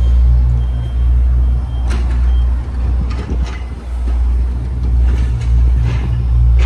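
A vehicle engine idling with a steady low drone, heard from inside the van. A few light knocks and clicks from handling the fittings come through over it.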